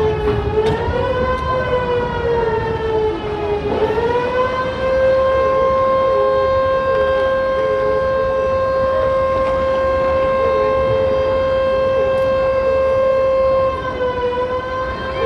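A horn sounding one long continuous blast, its pitch wavering for the first few seconds and then held steady, with a brief dip near the end.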